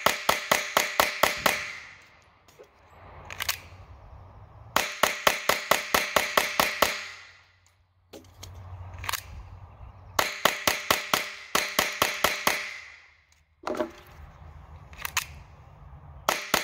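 Glock 44 .22 LR pistol fired as fast as possible in strings of about ten sharp shots, roughly four to five a second, cycling every round. Between strings come short pauses with a few single metallic clicks of magazine changes.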